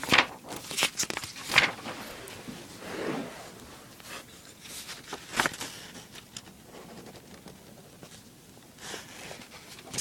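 Scratchy strokes of a drawing tool on paper, quick ones bunched in the first two seconds, then scattered single strokes.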